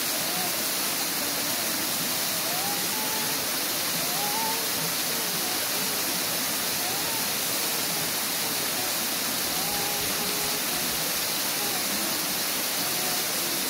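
Steady rushing hiss of running water, with faint distant voices underneath.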